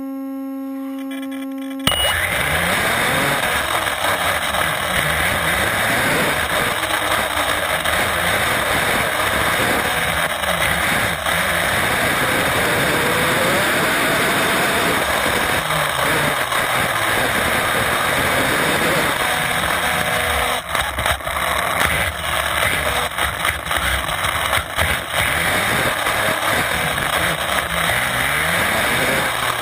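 Onboard sound of an HPI WR8 Flux brushless electric RC rally car driving, heard from a camera mounted on the car: a steady rush of wind and tyre noise, with a faint motor whine rising and falling as the car speeds up and slows. It opens with a steady tone lasting about two seconds before the driving noise starts.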